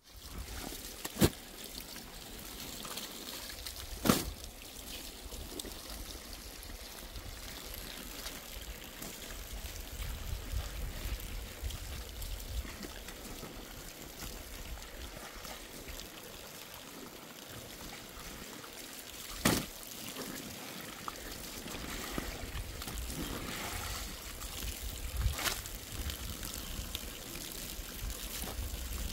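Water trickling and pouring steadily, with four sharp knocks spread through it.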